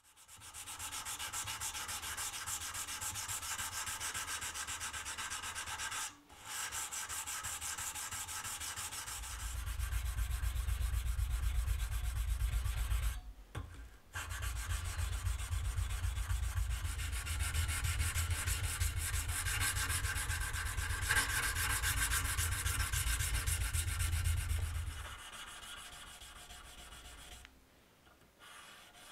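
Hand-sanding an 80CrV2 carbon steel knife blade clamped in a vise: abrasive paper on a block rubbed back and forth along the steel in quick strokes. This is the finishing stage, working the blade toward a mirror finish. The rubbing breaks off briefly twice and dies away near the end.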